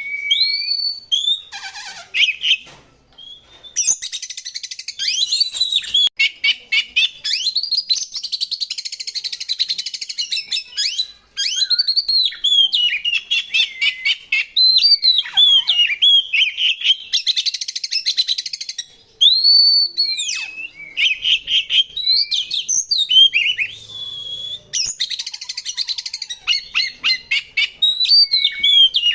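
Oriental magpie-robin (kacer) singing loudly and continuously: clear whistled notes that rise and fall, broken up by several stretches of fast, harsh rattling trills.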